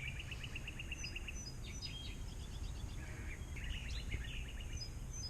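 Birds chirping over a steady low outdoor rumble. A rapid trill comes first, followed by scattered short calls.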